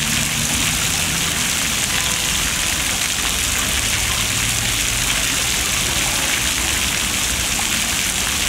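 Fountain water jets splashing steadily onto a wet stone basin, a continuous even hiss of falling water.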